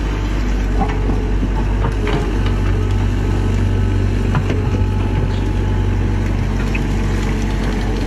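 Crawler excavator's diesel engine running steadily as the machine works its bucket and tracks to climb out of a water-filled ditch, with a few faint clicks and knocks.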